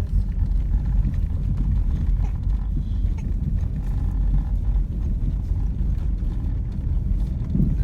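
Car driving along a snow-covered road, heard from inside the cabin: a steady low rumble of tyres and engine with uneven thumping from the road surface.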